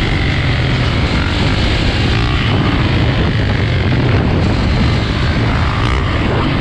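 Dirt bike engines running steadily at road speed, with wind rushing over the camera on the moving bike.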